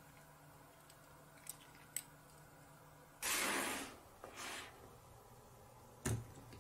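A toy garbage truck being handled: two faint ticks, then a short scraping rustle of under a second as its plastic rear bin tipper is worked by hand, a shorter one just after, and a single light knock near the end.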